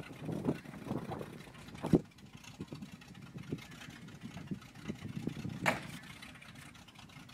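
Engine of a lifted, Jeep-bodied mud truck running with an uneven low rumble. Sharp knocks come about two seconds in and again near six seconds.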